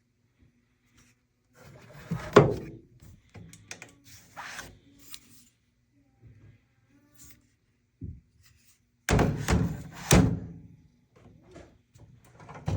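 A series of thunks and clicks from a gun safe being handled: a sharp knock about two seconds in, scattered light clicks, then a run of heavier thuds about nine to ten seconds in.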